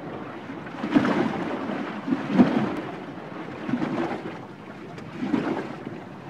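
Sea water surging and washing in repeated rushes, each swelling and falling back about every second and a half.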